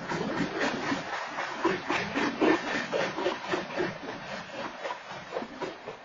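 BNSF freight train cars rolling past, with the wheels rattling and clanking over the rails in a run of irregular knocks, picked up by a security camera's microphone.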